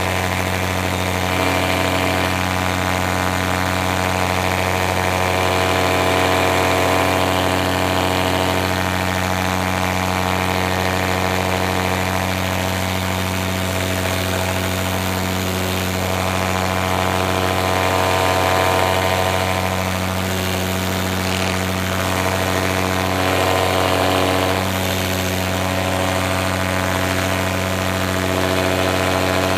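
Powered paraglider's backpack motor and propeller running steadily in flight, holding an even pitch throughout.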